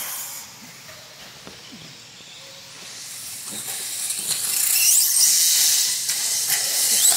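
Off-road RC buggy running on a dirt track, its drivetrain and tyres making a high hiss that swells as it comes close, loudest about five seconds in, with a few sharp ticks near the end.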